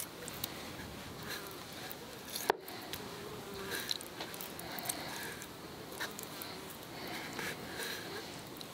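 Kitchen knife cutting raw liver over a plastic bowl: soft wet squishing with scattered small clicks, and one sharp click about two and a half seconds in.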